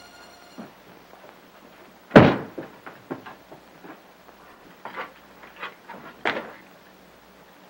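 A heavy wooden thud about two seconds in, then a scatter of lighter knocks and bumps: a trapdoor in a wooden floor being pulled open and someone moving through it.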